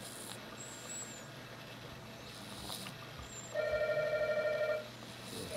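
Sleeping cat snoring: faint wheezy whistles on its breaths, and about three and a half seconds in one loud buzzing snore lasting about a second.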